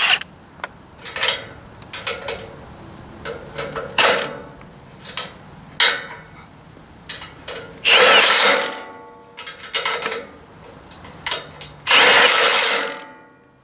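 Electric impact wrench run in two bursts of about a second each, one about eight seconds in and one about twelve seconds in, with sharp metal clicks and knocks of tools and parts between.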